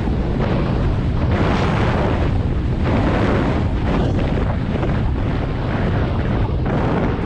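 Loud wind buffeting the microphone at speed, surging about once a second, typical of a fast mountain-bike descent.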